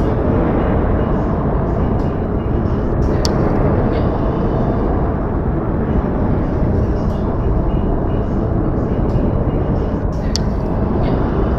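Snowfall ambience: a steady, low rushing noise with no distinct events, broken only by a faint sharp tick twice, about three seconds in and near the end.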